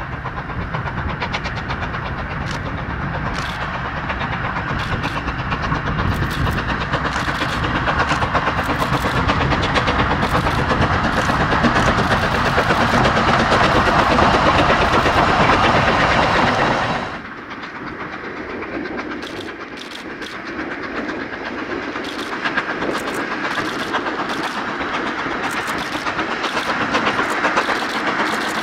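Narrow-gauge steam train running, its noise building steadily before dropping off abruptly about two-thirds of the way through. A thinner rolling sound with scattered sharp clicks follows.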